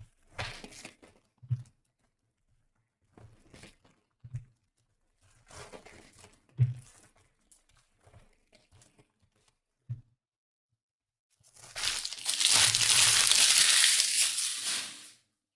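Trading card pack wrappers being handled and torn open: scattered rustles and light knocks, then a loud, sustained crinkling of the wrapper for about four seconds near the end.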